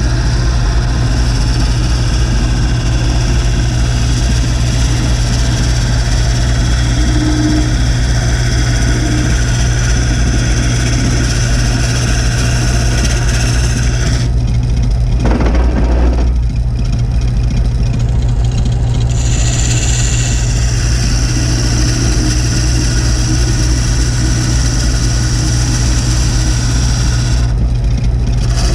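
Old wood lathe running, its motor giving a steady low hum under a high hiss from the spinning work. The hiss drops out for a few seconds just past the middle, then returns.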